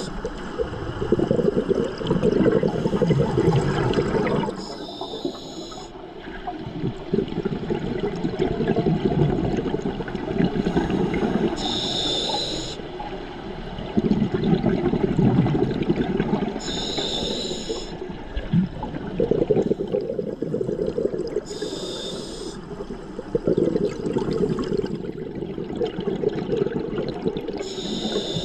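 Scuba diver breathing through a regulator underwater: a short hiss on each inhale about every five to six seconds, each followed by several seconds of gurgling exhaled bubbles.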